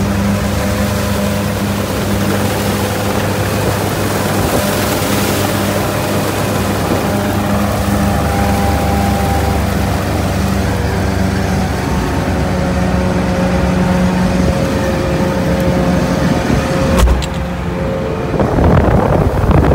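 Sherp ATV's diesel engine running steadily as the vehicle drives through shallow marsh water, with a sharp knock near the end.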